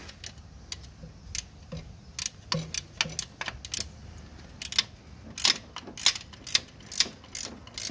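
Irregular sharp metallic clicks of hand tools working on bolts, a 17 mm spanner and socket ratchet tightening them down. The clicks are sparse at first and come faster in the second half.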